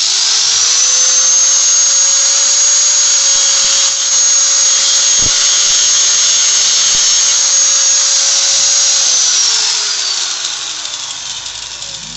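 Electric grinder switched on and running at a steady speed while trimming a worn engine part flat. Near the end it is switched off and winds down, its whine falling in pitch.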